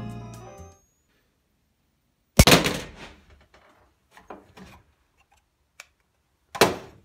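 The tail of background music fades out. Then comes handling noise: a few separate knocks and rubs as a plasma ball and other things are moved about on a shelf. The loudest knock is about two and a half seconds in, a softer cluster follows around four seconds, and another loud knock comes near the end.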